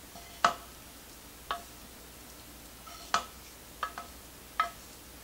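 Wooden spoon knocking and scraping against a frying pan while cooked onion and celery are scraped out of it: about five sharp, irregular knocks, each with a brief metallic ring.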